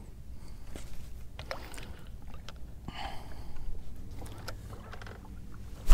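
Quiet handling sounds aboard a small fishing boat: scattered light clicks and knocks of tackle being handled, with a short soft rustle about halfway through and a low steady rumble underneath.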